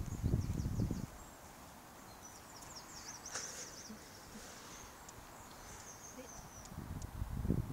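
Small birds chirping in quick high twitters, busiest about halfway through. Low rustling thuds come in the first second and again near the end.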